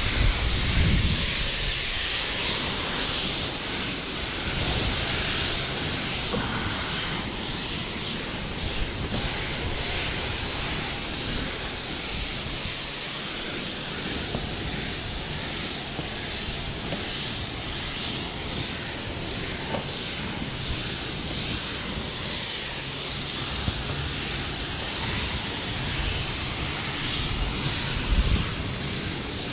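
Spray gun on an extension wand hissing steadily as it sprays coating paint onto concrete roof tiles.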